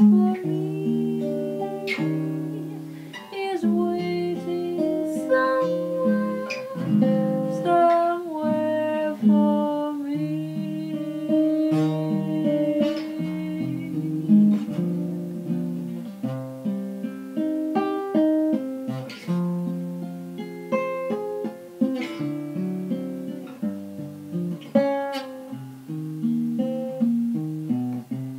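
Guitar music: an instrumental passage of a song, with plucked chords and melody notes changing in a steady rhythm.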